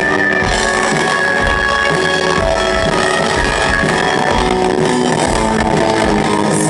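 A live rock band plays an instrumental passage with no singing: electric guitar with held notes over drums and bass, loud and steady.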